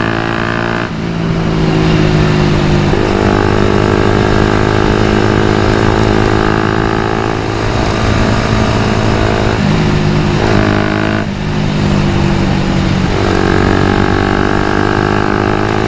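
Suzuki Satria FU 150's single-cylinder four-stroke engine running under way at fairly steady revs, its note shifting in strength every few seconds with the throttle.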